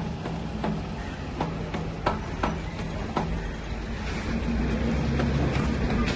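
Diesel generator set's engine running steadily, with scattered sharp metallic clicks, growing louder about four seconds in.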